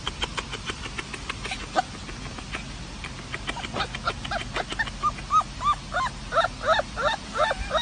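A puppy yipping in short high yelps that rise and fall in pitch, about three a second, starting about four seconds in and growing louder. Before the yelps there is a run of quick faint clicks.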